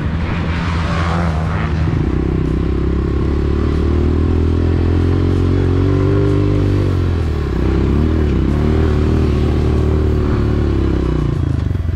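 Honda CRF125F's single-cylinder four-stroke engine running as the bike is ridden: the revs pick up about two seconds in and hold, ease off briefly past the halfway point, then rise again before dropping near the end.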